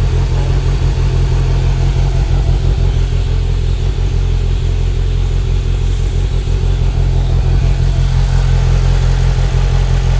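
2025 Polaris Slingshot's 2.0-litre four-cylinder engine idling rough, with a loud, uneven low pulse.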